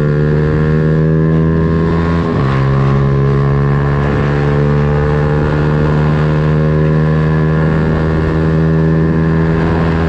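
Yamaha Sniper 150's single-cylinder four-stroke engine pulling under acceleration, its pitch climbing steadily. About two seconds in the pitch drops briefly at an upshift, then climbs again.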